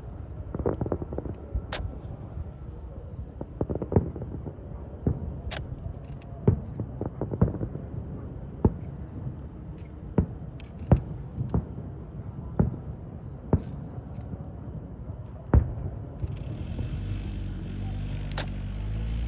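Fireworks shells bursting in a string of irregular sharp bangs, roughly one a second, over a low rumble. A low, steady drone comes in near the end.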